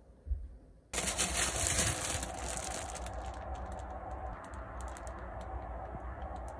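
Plastic bread bag crinkling and rustling in the hands, with many small crackles. It starts suddenly about a second in.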